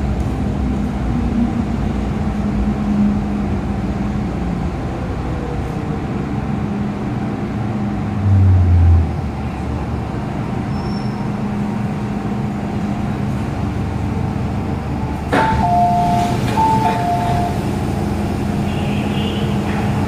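Metro-Cammell M-train running and drawing to a stop, heard from inside the passenger car as a steady running noise with a hum. A brief low thud comes about eight seconds in. About fifteen seconds in there is a click, then a two-note electronic chime sounding twice.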